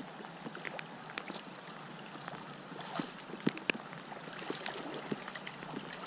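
River water lapping and splashing close by, with scattered sharp splashes and clicks, the strongest about three and a half seconds in.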